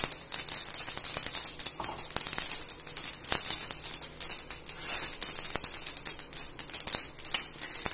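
Mustard and cumin seeds sizzling in hot oil in a kadai during tempering, a steady crackle with scattered sharp pops as the mustard seeds burst.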